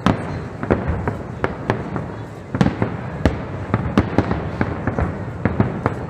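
Aerial firework shells bursting in quick, irregular succession: several bangs a second over a continuous rumble. There is a brief lull about two and a half seconds in, broken by a loud bang, then the bursts carry on.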